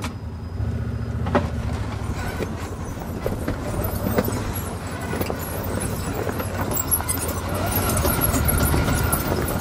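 Side-by-side off-road vehicle's engine running at low speed while crawling over a rough, rocky trail, its tyres knocking and clattering over stones.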